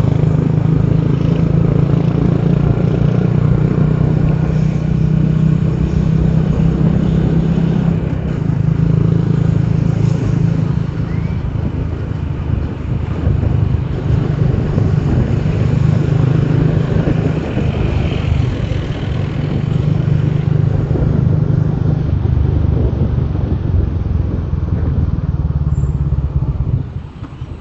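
Motorbike taxi's engine running while riding through traffic, its low note swelling and easing with the throttle, over steady wind and road noise. Near the end the sound drops away as the bike slows.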